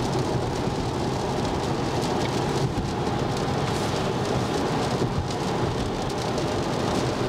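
Cabin noise inside an uninsulated electric Tesla Model Y at about 80 km/h: a steady hiss of tyres on a wet road mixed with wind noise, with no engine sound. It reads about 70 decibels on the sound meter.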